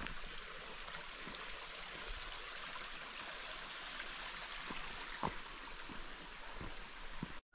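Steady rushing noise of running water, with a few soft footsteps, breaking off abruptly near the end.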